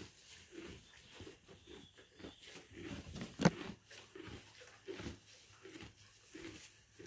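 Miniature donkey chewing hay close up: a steady munching crunch, about two or three chews a second. One sharp thump about halfway through.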